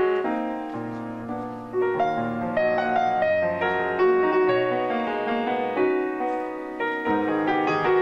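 Background piano music, a run of notes and chords.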